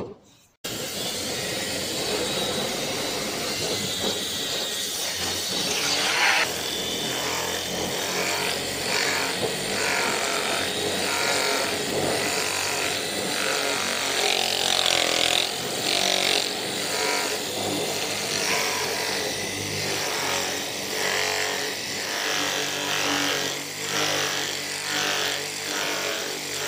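Corded electric rotary polisher fitted with a sanding disc, running steadily while it sands paint off the steel top of a metal cabinet. Its sound rises and falls about once a second as the disc is pressed and swept across the panel.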